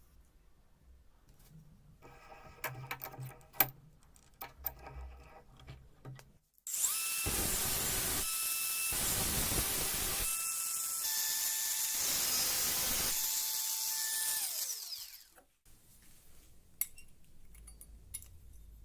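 An electric power tool runs for about eight seconds, its motor whine shifting pitch several times under load, then winds down with a falling whine. Before it, a few handling clicks and knocks.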